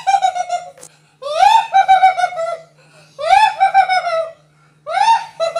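A witch's high-pitched cackling laugh in four bouts, each starting with a rising whoop and breaking into a fast ha-ha-ha; the last bout is still going at the end.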